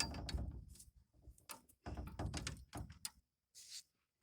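Handling noise on a handheld camera: a sharp click, then irregular knocks and rubbing against the microphone in uneven patches.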